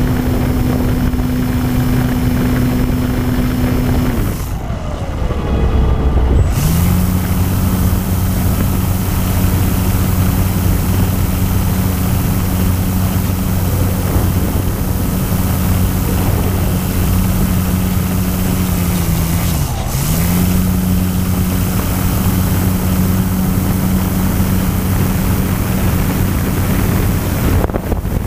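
Electric motor and propeller of an E-flite Apprentice RC trainer plane running at steady throttle, a droning whine over a rush of air. The throttle is cut about four seconds in and the pitch falls away, then the motor spools back up about two seconds later. There is a brief dip in pitch near the twenty-second mark.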